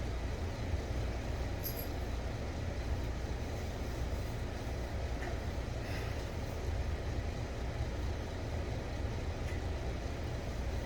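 Steady low rumbling background noise, even throughout, with a faint high tick about two seconds in.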